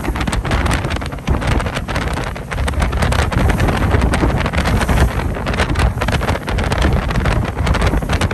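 Wind buffeting the microphone on a moving ferry, gusting unevenly over the steady low rumble of the boat's engine and water rushing past the hull.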